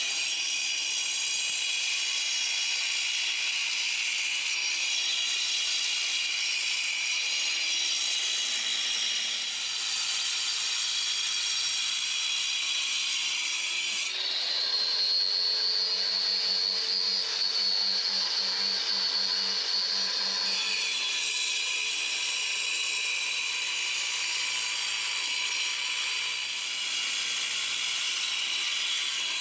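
Angle grinder with a cutting disc running steadily as it cuts through mortar and soft concrete around the bricks, a continuous high whine and grinding hiss; for several seconds in the middle the motor's pitch shifts as the load on the disc changes, then settles back.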